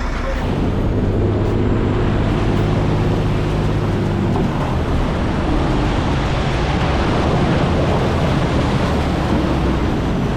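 Bridge erection boat's engine running steadily, a low hum that is clearest over the first four seconds or so, mixed with rushing water and wind noise.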